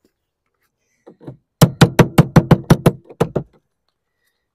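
Claw hammer driving nails through lead sheet into a plywood cheek: two light taps, then a quick run of about a dozen sharp blows at roughly five a second, stopping a little past the middle.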